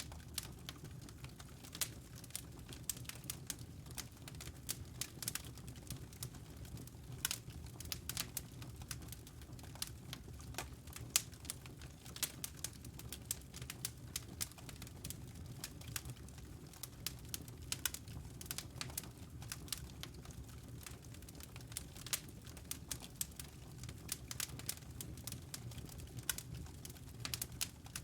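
Wood fire burning in a fireplace: burning logs crackling and popping in a quick, irregular stream of small snaps over a steady low rumble of flame.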